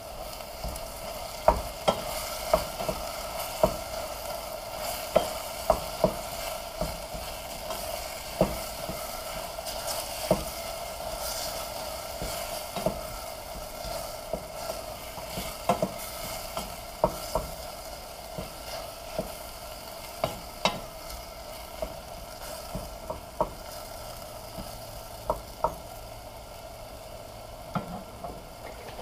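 A wooden spoon stirring sliced mushrooms and tomatoes in hot oil in a stainless steel pot. Under the steady sizzle of frying there are frequent, irregular knocks of the spoon against the pot.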